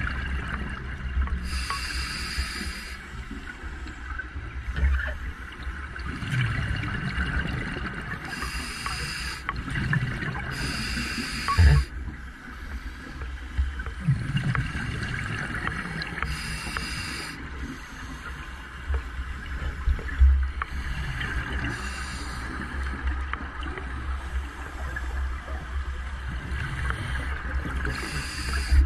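Scuba regulator breathing heard underwater: a short hissing breath every few seconds, alternating with bubbling exhalations, over a steady low rumble.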